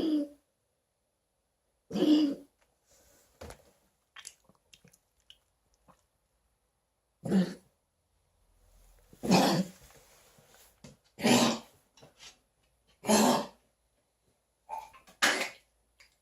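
Repeated coughing: about seven short coughing bouts, separated by pauses of a few seconds.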